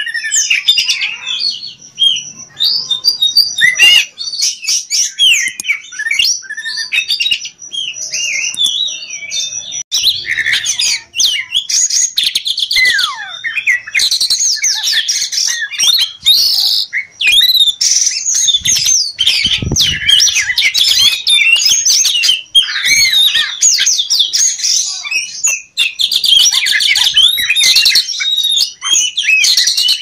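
Oriental magpie-robin (kacer poci) singing a loud, varied song of quick whistles, chirps and trills, running on with hardly a pause.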